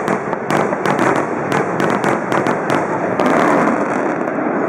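Fireworks finale barrage: a dense run of rapid bursts and crackles over a continuous noisy rumble. The sharp cracks thin out after about three seconds.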